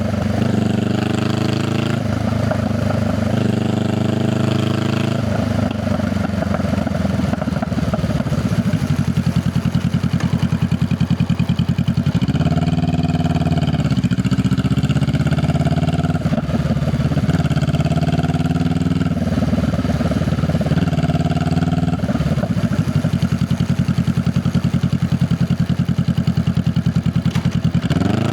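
Honda Rebel 500's parallel-twin engine and exhaust under way, the engine pitch climbing in two short pulls near the start, then holding steady, then rising and dropping several times in the middle, with another climb at the end as the bike accelerates and shifts through traffic.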